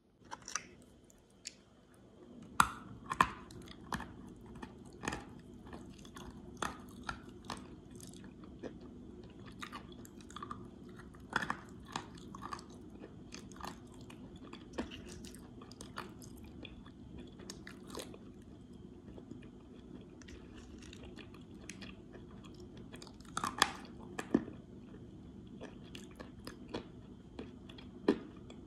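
Close-up chewing and crunching of dry clay and chalk lumps in the mouth, with sharp, irregular crunches over a low steady hum. The loudest bites come about three seconds in and again about three quarters of the way through.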